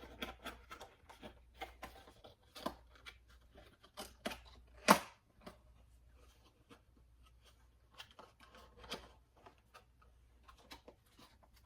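Handling noises: a scattered string of small clicks and rustles, with one louder, sharp click about five seconds in.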